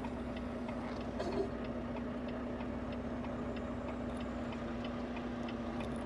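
Semi-truck engine idling with a steady hum, under a regular, light ticking.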